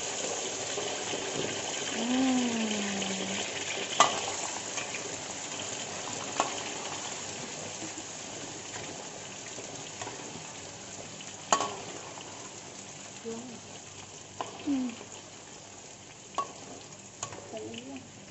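Shallots, garlic and ginger frying in a steel wok of hot oil: a steady sizzle that slowly dies down as they soften. A metal ladle stirs and knocks against the wok now and then, with a sharp clack about four seconds in and another near the middle.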